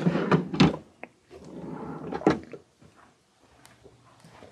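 Wooden tool-chest drawers pushed shut on their 10-inch drawer glides: a couple of knocks in the first second, and another sharp knock a little past two seconds in.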